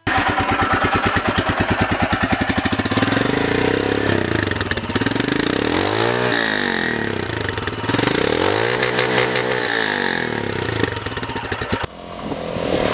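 Royal Enfield Himalayan's 411 cc single-cylinder engine idling with a steady, even beat, revved up and back down twice in the middle. Near the end the sound drops sharply to a quieter engine sound.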